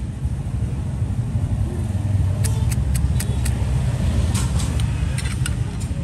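A steady low rumble of road traffic, with two quick runs of sharp clicks in the second half as a Zippo lighter's metal insert and case are handled.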